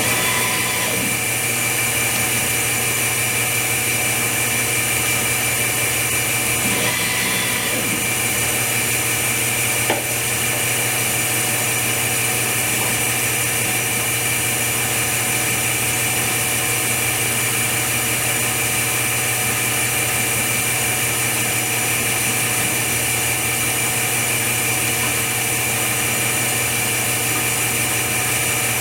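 Steady machine drone with a low hum and a constant high whine, and a single short click about ten seconds in.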